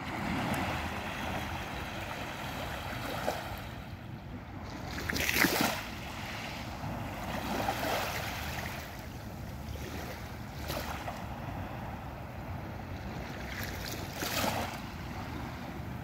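Small, gentle waves lapping on a sandy, pebbly beach. Each wave breaks with a short wash: the loudest comes about five seconds in, and smaller ones follow near eight, eleven and fourteen seconds.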